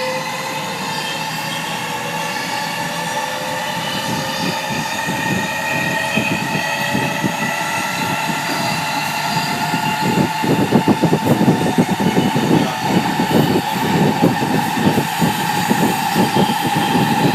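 Toshiba GTO VVVF inverter and traction motors of a 207 series 1000 subseries electric train motor car whining in several rising tones as the train picks up speed, with a steady high tone alongside. This car's inverter sound is offset from normal, which gives it a distinctive tone. A heavy rumble of wheels on rail builds up from about ten seconds in.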